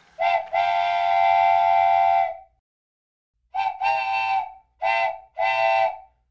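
Train whistle sounding a chord of several tones: one long blast of about two seconds, then three short blasts.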